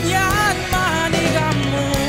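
A song sung in the Kalinga language: a voice sings a wavering melody over a band accompaniment with steady beats.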